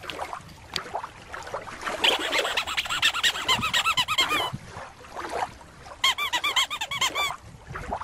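Two quick runs of high squeaks, each note rising and falling in pitch: one about two seconds in, the other about six seconds in.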